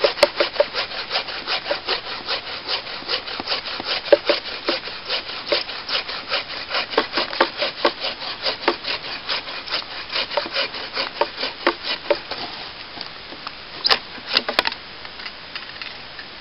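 Takedown hand saw cutting through a dead log with fast, even back-and-forth strokes, about three a second. The sawing stops about twelve seconds in, and a few sharp knocks follow shortly after.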